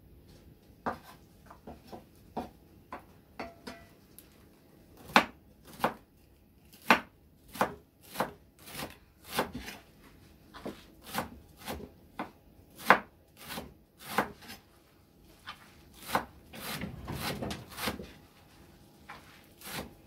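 Knife chopping on a wooden cutting board in irregular strokes, one or two a second, with a short stretch of scraping near the end.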